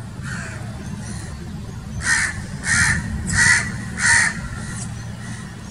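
A crow cawing: a couple of faint caws, then four loud caws in a row about two-thirds of a second apart, starting about two seconds in. A steady low rumble runs underneath.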